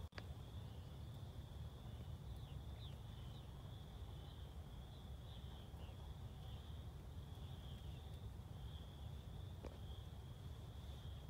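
Faint, steady high-pitched trilling chorus of small animals, with short chirps laid over it, above a low rumble. No turkey call is heard.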